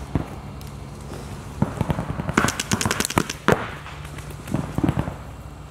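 Paintball markers firing in several rapid strings of sharp pops, the loudest and densest string about two and a half seconds in.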